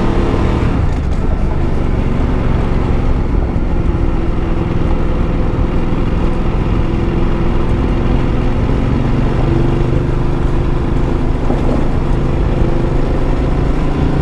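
Ducati Multistrada motorcycle engine running on a gravel track, its pitch shifting as the throttle opens and closes, over a heavy rumble of tyres on the loose dirt surface.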